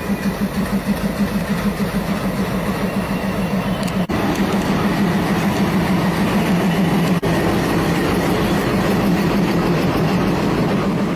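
Diesel locomotive's engine running steadily, a loud low throb with noise spread above it. There are two brief dropouts, about four and seven seconds in.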